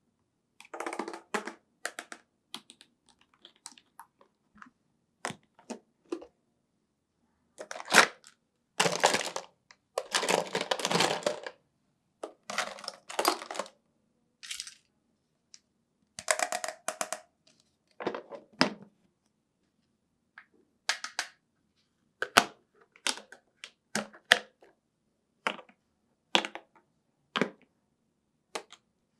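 Hard plastic parts of a toy ambulance doctor playset being handled: a string of separate clicks, knocks and short rattles as the case's lid is opened and the plastic doctor tools are taken out and set in place. A denser run of rattling comes about nine to eleven seconds in.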